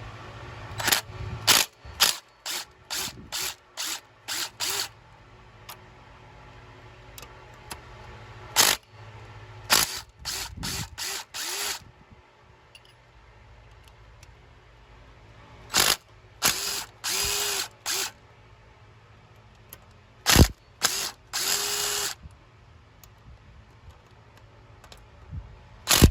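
Battery power tool run in many short bursts and a few longer runs, its motor whining up in the longer ones, as it loosens and spins out the T45 Torx bolts on a Fiat 1.4 MultiAir actuator brick.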